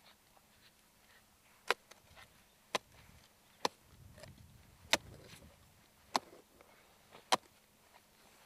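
A spade chopping into the turf of a rabbit warren: six sharp strikes, roughly one a second.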